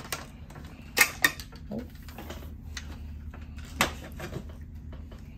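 Hard plastic clicks and knocks as a Dyson V8 soft roller floor head is pushed onto the vacuum wand: two sharp clicks close together about a second in, another just before the end, and lighter handling sounds between.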